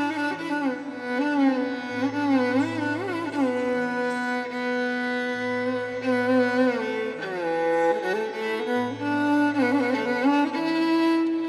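Carnatic violin playing an ornamented melody full of sliding, bending notes over a steady drone.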